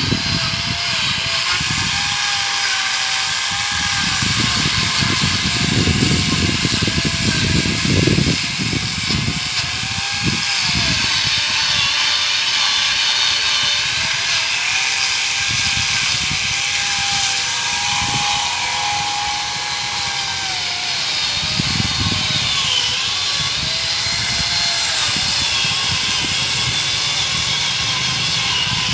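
Grinder saw (an electric angle grinder fitted with a saw attachment) running continuously while cutting a dead coconut palm trunk, its motor whine dipping and recovering again and again as the cut loads it.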